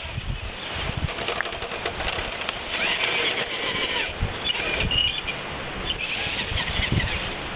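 Radio-controlled rock crawler driving over rock and leaf litter, its electric motor and gears whirring in short bursts, with rustling and low thumps from wind or handling on the camera's microphone.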